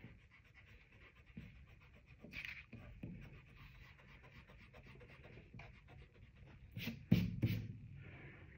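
Pencil eraser rubbing back and forth on drawing paper in short scratchy strokes, rubbing out pencil lines. A louder bump of handling on the paper or table comes about seven seconds in.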